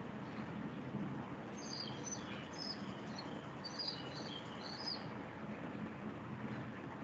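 Small birds chirping: a quick run of short high notes from about a second and a half to five seconds in, over a steady low background hum.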